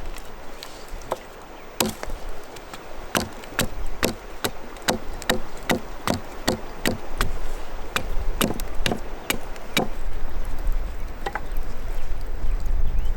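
Repeated chopping, sharp strikes about three a second, which stop about ten seconds in.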